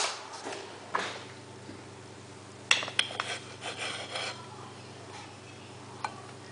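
Knife slicing a roll of shortbread dough on a plate: a few sharp knocks of the blade on the plate about a second in, around three seconds in and near the end, with some scraping between.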